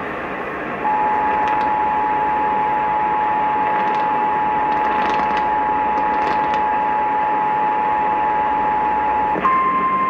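EAS two-tone attention signal (853 and 960 Hz sounding together) over AM radio static, from a Sangean weather radio's speaker tuned to AM 560, starting about a second in and holding steady. Near the end it switches to the single 1050 Hz weather-radio warning tone, heralding a relayed tornado warning.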